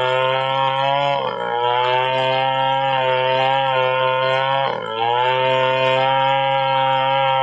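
Stihl chainsaw running at high revs, ripping lengthwise through an angsana log to cut planks. Its pitch dips briefly about a second in and again near five seconds, then climbs back.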